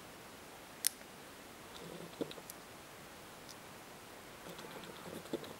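Small tactile push-buttons on a TS100 soldering iron clicking as they are pressed, with light handling of the iron. One sharp click a little under a second in is the loudest, with a smaller click near two seconds and a few faint ticks.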